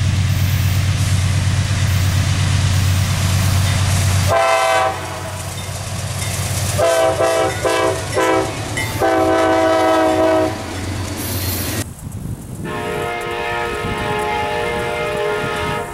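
A low steady rumble, then a CSX freight locomotive's air horn sounding several blasts as the train approaches and passes. After an abrupt cut about twelve seconds in, a second train's horn sounds one long steady blast, more distant.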